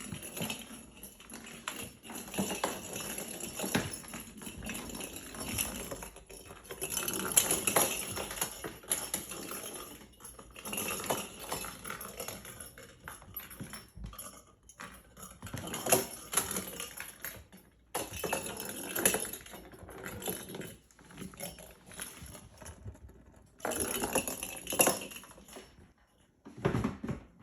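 Kittens batting small toy balls around: irregular bursts of rattling and clattering that come and go, with quieter stretches between.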